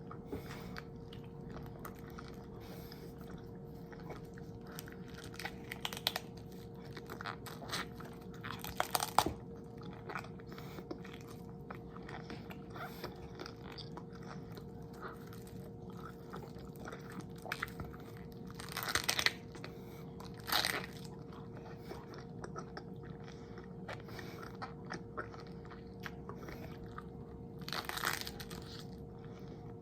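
Close-miked eating: steady chewing with many small crackles and a few louder crunchy bites spread through, over a faint steady hum.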